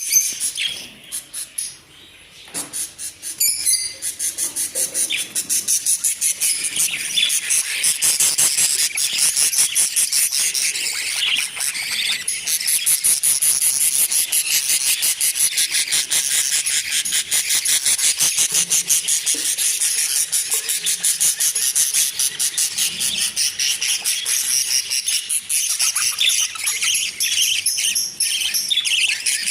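A flock of budgerigars chattering and chirping nonstop, a dense mass of rapid high chirps and clicks, quieter for a moment about two seconds in.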